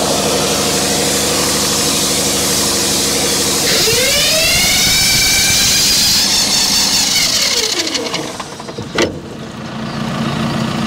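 Deutz engine of a pump unit running steadily, then racing up sharply about four seconds in and holding a high pitch before winding down near eight seconds, with a single sharp knock just after. The engine has over-revved because the coupling sleeve between engine and pump has broken again.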